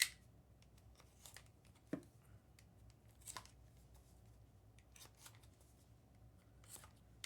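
Scattered small clicks, snips and rustles of a sports-card box and its wrapping being opened and handled, about eight short sounds spread over several seconds, the sharpest right at the start.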